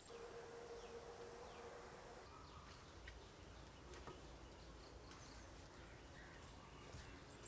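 Faint insect sounds: a steady high-pitched insect drone, with a lower buzz in the first two seconds that then stops.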